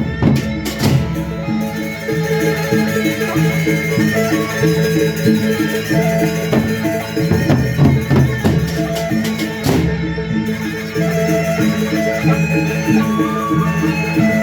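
A Sasak gendang beleq ensemble playing an opening tabuh. Gongs and metal percussion ring out in a repeating interlocking pattern over the drums, with sharp cymbal or drum strokes near the start and again about ten seconds in.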